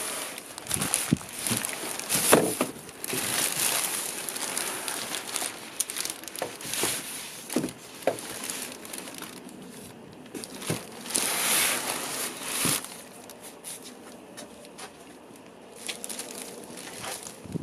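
Plastic packaging bag crinkling and rustling as it is handled and pulled out of a cardboard box, in irregular bursts with scattered knocks. It is loudest in the first few seconds and again about eleven seconds in.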